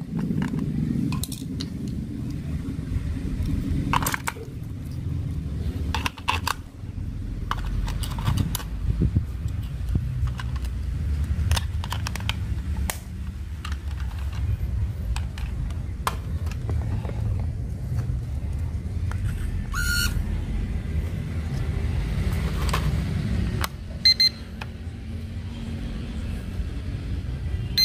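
Plastic clicks and rattles of a toy quadcopter's remote controller being handled while its battery cover is opened and batteries are fitted, over a steady low rumble. Short electronic beeps come about twenty seconds in and again near the end as the remote and drone power up and pair.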